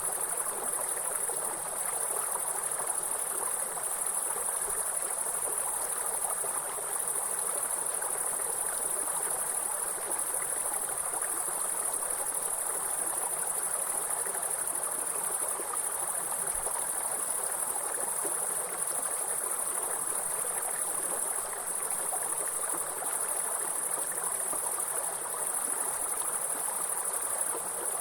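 A steady, high-pitched chorus of insects such as grasshoppers or crickets, over the continuous rush of a stream or small waterfall.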